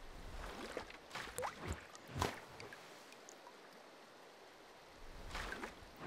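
Faint water sound effects: a few short splashes and drips, some with a quick rising 'bloop' in pitch. They come about a second and a half, two seconds and five and a half seconds in.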